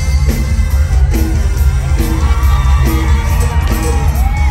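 Loud live Thai Isan-style pop dance music over a stage PA, with a heavy, steady bass beat and a gliding melody line above it.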